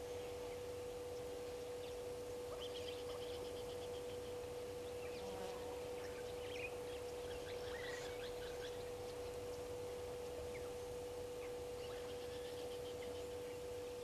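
Faint, scattered high bird chirps and calls, coming in short clusters, over a steady electrical hum and background hiss.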